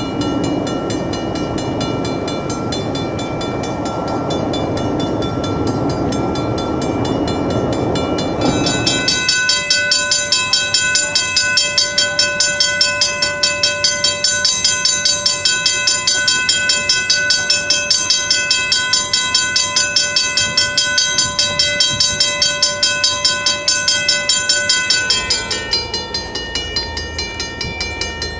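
Safetran mechanical railroad crossing bells ringing, each struck rapidly at about four strikes a second. For the first nine seconds a bell rings over the rumble of a passing train. A louder, differently pitched bell then rings until about 26 s in, when another bell takes over over a low rumble.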